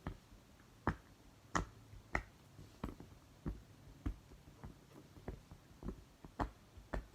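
Tie-dye mini silicone poppet fidget toy having its bubbles pushed through one by one: a dozen or so sharp little pops, about two a second, slightly uneven.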